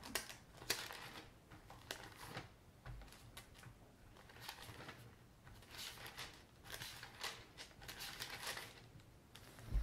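Thin Bible pages being leafed through: a run of faint paper rustles and quick flicks as page after page turns.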